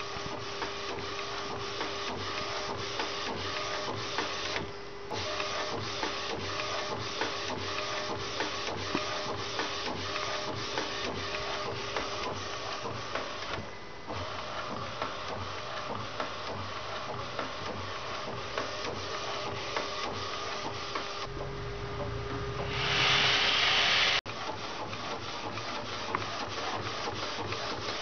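Epson T1100 inkjet printer, converted for direct-to-garment printing, running a print job: the print-head carriage moves with fast, regular ticking and a steady hum, easing off briefly twice. Near the end a louder rushing noise lasts about a second and a half and cuts off sharply.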